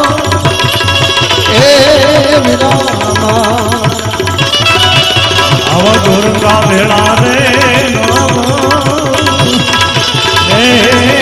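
Gujarati santvani devotional folk music: an ornamented, wavering melody over a steady hand-drum rhythm.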